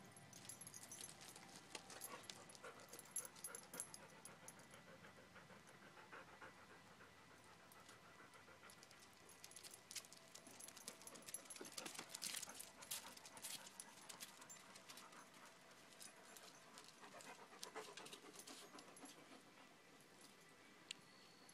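Faint panting of dogs, with scattered light clicks and scuffs as they move about.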